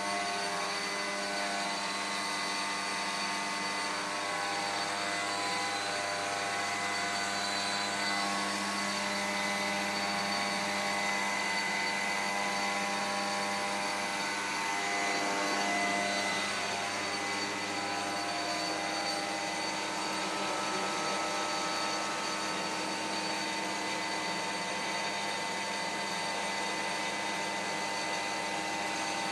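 Small electric blower running steadily with a whine over a rushing noise, as it feeds air to a burning tire-syngas flame.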